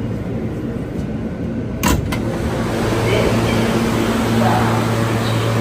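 Subway train standing in the station: a steady mechanical hum from its equipment that grows a little louder about three seconds in, with one sharp clack about two seconds in.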